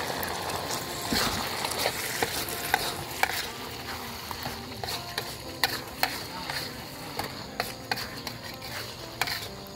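Metal wok spatula stirring and scraping around a wok, with repeated sharp clicks against the pan, over the steady sizzle of petai beans frying in sambal chili paste.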